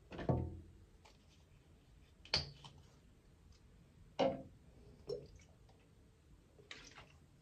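A few short clicks and knocks of plastic skincare bottles being handled and put down, ending with toner squeezed from its bottle into a palm.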